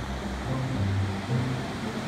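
Ocean surf washing steadily on a sandy beach, under background music with a low bass line that changes notes every half second or so.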